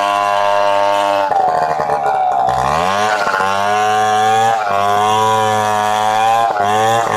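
Stihl 070 two-stroke chainsaw running at high speed while ripping a log lengthwise. About a second in, its pitch sags and turns rough under the load of the cut, then climbs back near three seconds, with two brief dips later on.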